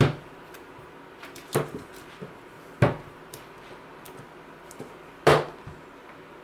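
Four sharp knocks of hard objects being set down or handled on a desk, irregularly spaced over a few seconds, with a few fainter ticks between them.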